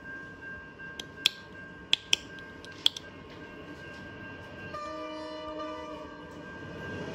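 A few sharp clicks, then a train horn sounds for about a second and a half in the second half.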